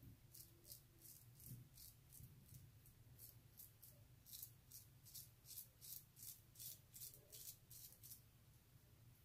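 CJB kamisori straight razor with a Feather Artist Club Pro Light blade scraping through lathered stubble in short, faint strokes, about two a second.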